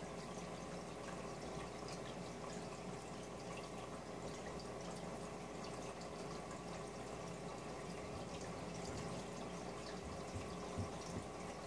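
Aquarium air stones bubbling, a faint steady trickle and fizz of water with a low steady hum underneath. A few soft taps come about ten seconds in.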